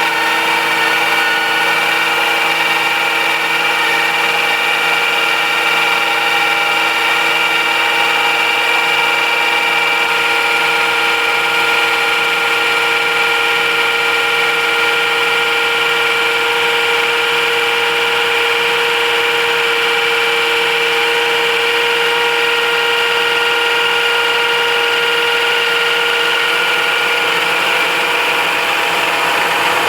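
Quadcopter drone (DJI Mavic Pro) rotors whining steadily at a high, even pitch.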